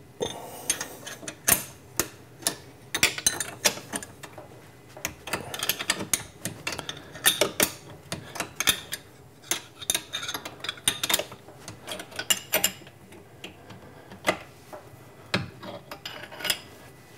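Wrenches working on the mill head's bolts: irregular bursts of sharp metallic clicking and clinking as the bolts are loosened.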